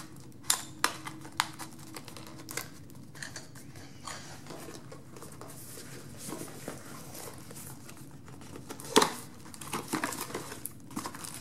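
Cardboard boxes and plastic-wrapped accessories handled and opened by hand: scattered light taps, scrapes and crinkles of packaging, with a louder knock about nine seconds in.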